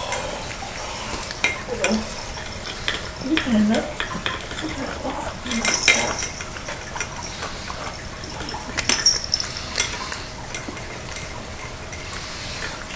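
Cats eating from bowls close by: irregular chewing and small clicks and taps against the bowls.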